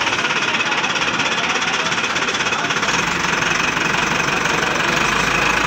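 A steady machine noise with a rapid, even beat, like an engine running.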